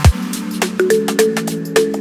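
Background electronic music with a regular beat, with a deep bass note sliding downward at the very start.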